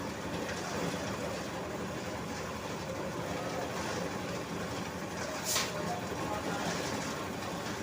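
Engine of road-building machinery running steadily, with one sharp click about five and a half seconds in.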